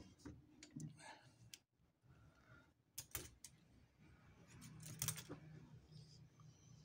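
Faint scattered clicks and handling noises as hands work around the needle and thread of a stopped shoemaker's sewing machine and the towel under its foot, with two pairs of sharper clicks, around three and five seconds in.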